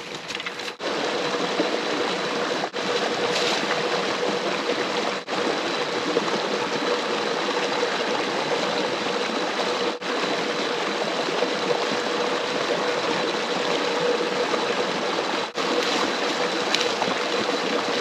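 Steady rush of flowing creek water close by, broken by a few brief gaps.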